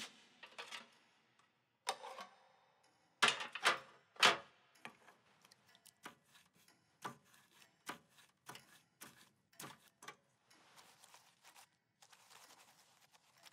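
Shaving things being handled on a metal tray: small jars, lids and a metal bowl clicking and clinking. A louder cluster of knocks comes about three to four seconds in, then lighter, scattered clicks, and a faint rustle near the end.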